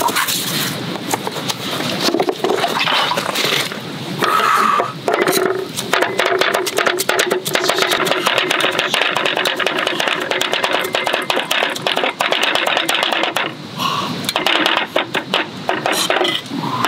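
Two cleavers chopping rapidly on a wooden cutting board, mincing food by hand. A few scattered knocks at first, then about five seconds in a fast, steady stream of knocks with a brief pause near the end.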